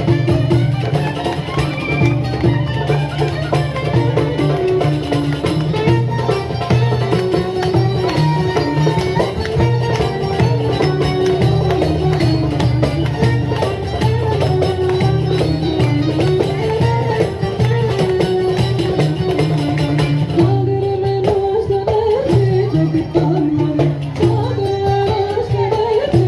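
Live traditional folk music from a band: a winding melody played over a steady hand-drum rhythm and a low bass, continuous throughout.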